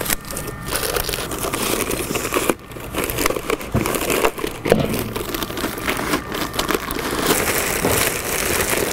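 Thin plastic Longopac bag liner rustling and crinkling continuously as it is pulled over the dust collector bin's ring and gathered up by hand, with a brief lull a few seconds in.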